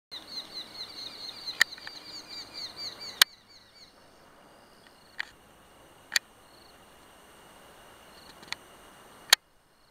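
Eurasian hobby nestlings begging: a rapid run of high, falling peeping notes, about six a second, which stops about three seconds in. Several sharp clicks are scattered through, the loudest about three seconds in and near the end.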